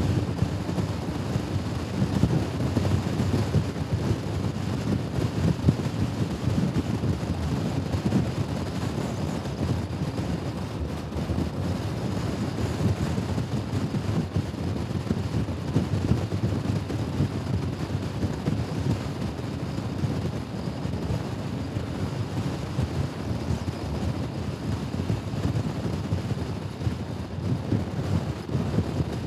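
Wind rushing and buffeting over the microphone of a Honda Forza scooter at riding speed, with engine and road noise beneath it.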